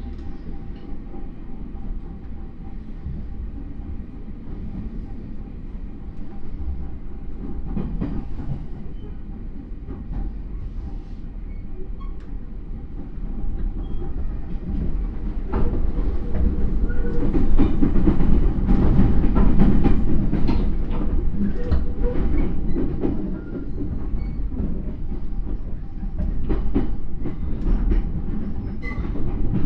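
Running noise inside a JR East E231 series motor car with a Hitachi IGBT inverter: a steady rumble from the wheels, with repeated clicks over rail joints and points. The noise grows louder about halfway through, then eases slightly.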